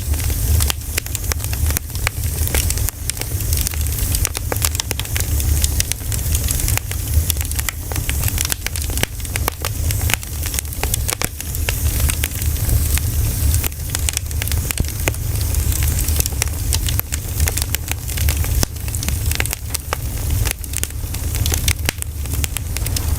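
Campfire of burning pine cones crackling continually with many sharp, irregular snaps, over a steady low rumble.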